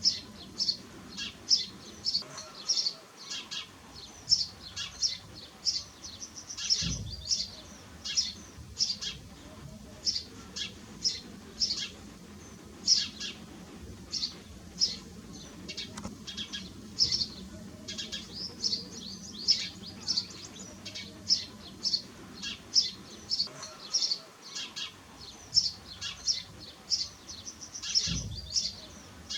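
A flock of house sparrows chirping continuously, many short overlapping chirps a second. Two brief low thumps, one early and one near the end.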